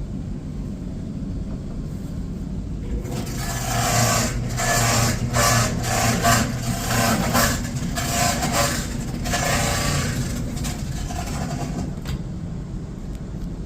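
Samsung clothes dryer running with a steady low rumble. From about three seconds in, a louder rough noise pulses in and out irregularly for about eight seconds before easing off: the abnormal noise the dryer is making.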